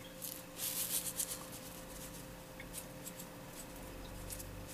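Black sesame seeds being shaken from a glass jar over sushi rice: a few faint soft rustles in the first second or so, then scattered light ticks. A faint steady hum runs beneath.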